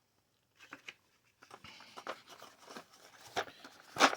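Handling of a cardboard board game box and its pieces: rustling, scraping and small clicks, with a louder knock near the end.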